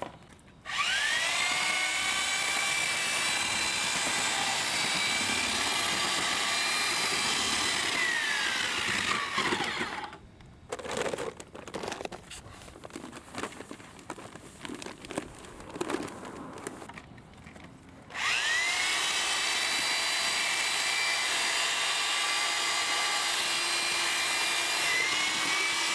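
Electric drill with a mixing paddle mixing StyroCrete cement-based spray texture with resin and water in a bucket. The motor whines up to speed, runs steady for about eight seconds and winds down. After a pause with scattered knocking and scraping, it spins up again about eighteen seconds in and runs steady.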